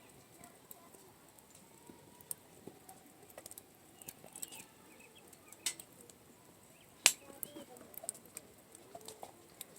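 Wood campfire crackling: scattered irregular pops and snaps over a low background, the sharpest pop about seven seconds in.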